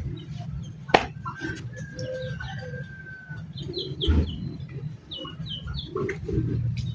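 Birds calling with short chirps and a held whistled note, over a steady low hum, with one sharp click about a second in.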